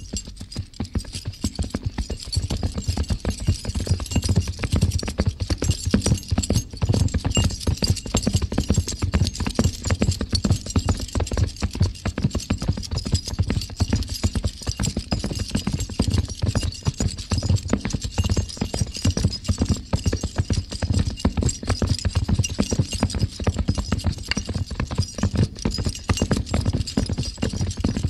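Two horses galloping: a fast, dense run of hoofbeats that grows louder over the first few seconds and then keeps going.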